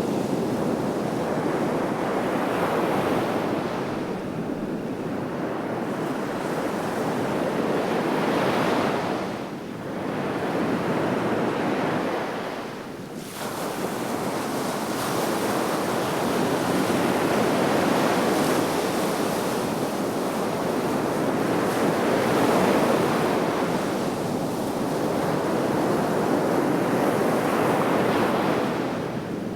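Sea waves washing onto the shore: a continuous surf that swells and eases, with short lulls about ten and thirteen seconds in.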